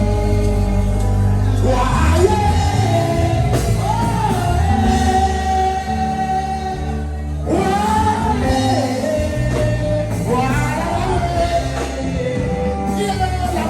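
Gospel music: a voice sings long, bending phrases over a steady instrumental backing, with a new sung line coming in about two seconds in and again about halfway through.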